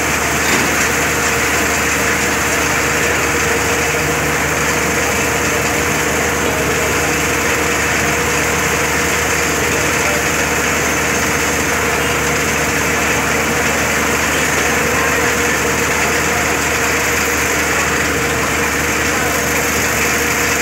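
Crane's diesel engine running steadily at one constant speed, with an even, unchanging hum.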